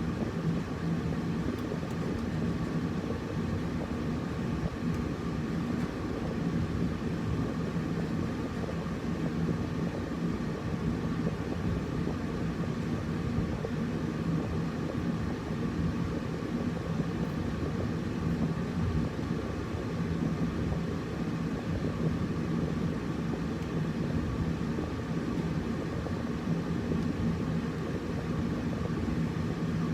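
Air conditioner running steadily: an even rush of air with a constant low hum and a faint higher tone, never changing.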